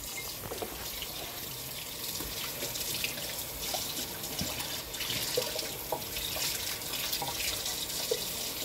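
Kitchen faucet running steadily into a sink, the stream splashing over a green onion being rinsed under it.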